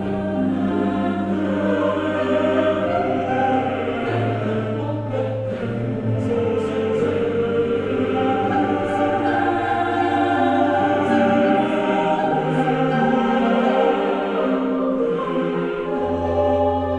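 Background music: a slow choral piece with long held chords over sustained bass notes that change every few seconds.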